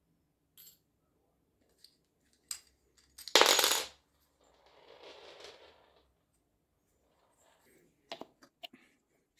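Metal parts of a dishwasher pump motor clinking as they are handled on a hard surface: a few light clicks, one loud metallic clatter with a brief ring about three seconds in, a softer scrape after it, and more clicks near the end.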